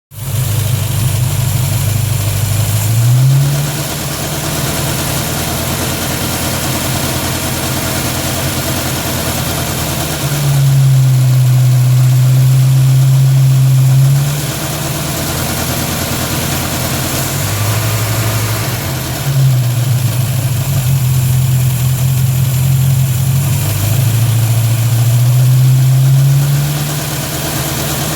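Car engine running in the engine bay with a strange low hum that steps up in pitch and gets louder several times, for a few seconds each, then drops back.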